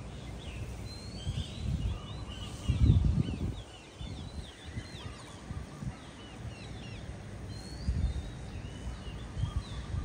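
A flock of large green parrots calling, many short chirps and squawks overlapping. A few low rumbles on the microphone, the loudest about three seconds in.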